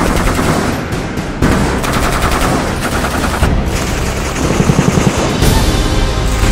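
Several bursts of rapid automatic fire from belt-fed M240 medium machine guns on bipods.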